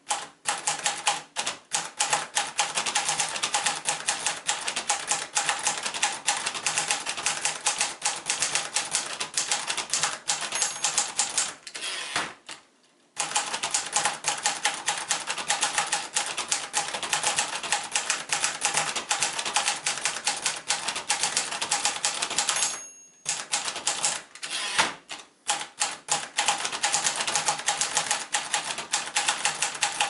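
A 1956 Royalite ultraportable manual typewriter being typed on briskly: a rapid run of type-bar clacks, with a brief high ring twice, each just before a short pause in the typing.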